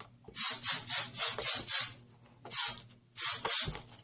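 A scented spray, such as a bathroom air freshener, being sprayed in short repeated hissing bursts: a quick run of about six sprays, then a few more near the end.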